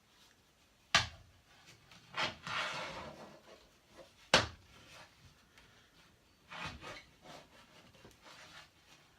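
Hands rubbing over freshly wrapped hockey tape on a stick shaft, pressing it down to squeeze out air bubbles, in short scrubbing strokes. Two sharp knocks, about one second and four seconds in, are the loudest sounds.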